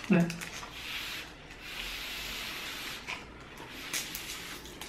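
Cardboard being handled and folded by hand, giving a dry scraping, rubbing sound, with a couple of light taps near the end.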